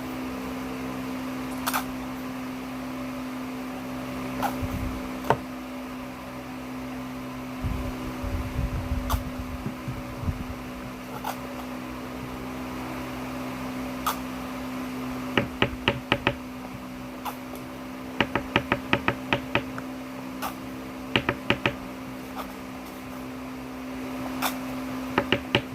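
A steady low hum with groups of quick, sharp clicks, coming in fast runs over the second half.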